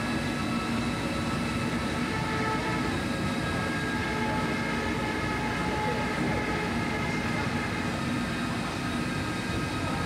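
Osaka Monorail car running along its elevated track, heard from inside the cabin: a steady rumble with several steady high whines held through.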